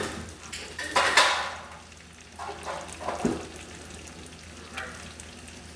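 Food frying in a pan, with a utensil stirring and scraping against the pan several times; the loudest scrape comes about a second in.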